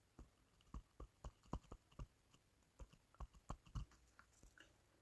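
About a dozen faint, irregular clicks, stopping about four seconds in.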